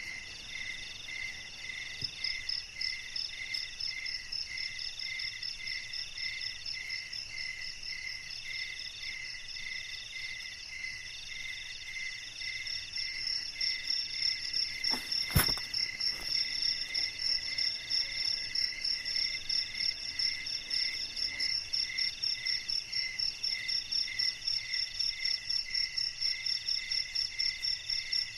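Night chorus of insects and frogs: several rhythmic calls at different pitches overlap, one of them a high, fast pulsing that grows louder about halfway through. A single sharp click or knock stands out about 15 seconds in.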